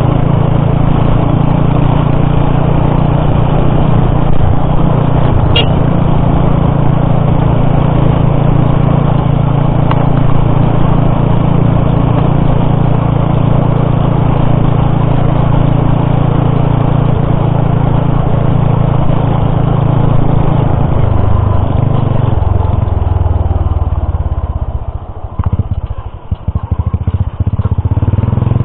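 Motorcycle engine running steadily under way, heard from the rider's seat. About three-quarters of the way through, the engine note changes and drops off. For a couple of seconds the sound turns choppy and uneven as the bike slows, then it steadies again near the end.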